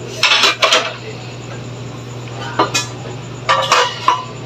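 Metal kitchenware clattering: an aluminium wok lid and a metal ladle clink against each other and the pan. There are two quick clatters in the first second, a single clink a little before 3 seconds, and a cluster of clinks near the end as the lid is set on the wok.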